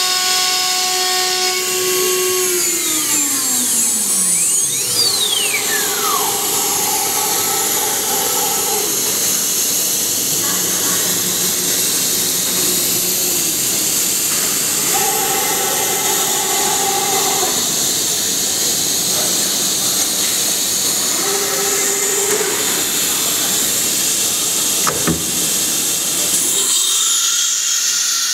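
CNC router spindle winding down, its whine falling away over a few seconds. It is followed by several short motor runs as the machine moves, then the spindle spinning back up to a steady high whine near the end, over a constant hiss. This pattern is typical of an automatic tool change cycle.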